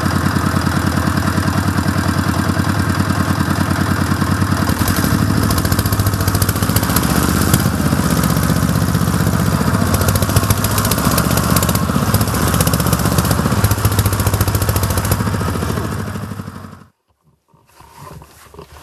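Quad bike engine running with an even, rapid pulse, getting rougher and brighter about five seconds in, then stopping abruptly near the end.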